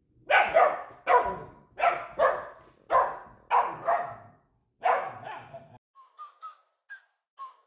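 A dog barking, about nine sharp, loud barks in quick succession. About six seconds in, the barking stops and a run of short, high, whistle-like notes begins, about two a second.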